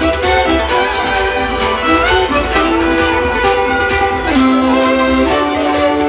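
Live band music with a violin playing the melody over a steady beat and deep bass.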